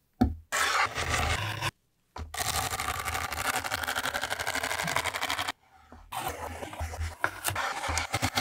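Chef's knife cutting vegetables on a bamboo cutting board: crisp strokes through onion, then a fast, even run of chopping through celery, then dicing carrot. The sound comes in short edited segments that start and stop abruptly.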